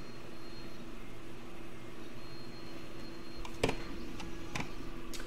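Laser engraver running a framing pass: a steady machine hum with a faint high whine from the stepper motors that comes and goes as the laser head traces the job's outline. A few sharp clicks near the end.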